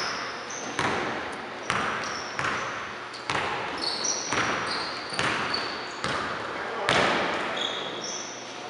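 A basketball being dribbled on a hardwood gym floor, about one bounce a second, each bounce echoing in the gym, with short high squeaks of sneakers on the court.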